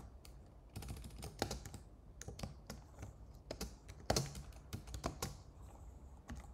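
Typing on a computer keyboard: quick, irregular keystrokes with short pauses, one key press louder about four seconds in.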